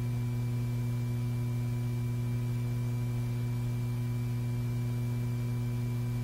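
Steady electrical hum with a few higher overtones, unchanging throughout; no shots or handling sounds are heard.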